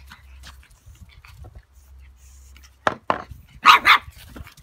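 Ten-week-old pug puppy play-barking: four short, sharp barks start about three seconds in, the last two loudest and in quick succession.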